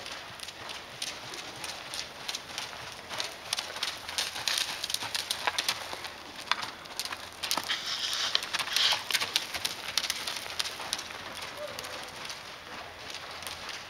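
Pony hooves and a person's footsteps scuffing through arena sand at a walk: a steady run of short, irregular ticks and scuffs, busiest in the middle.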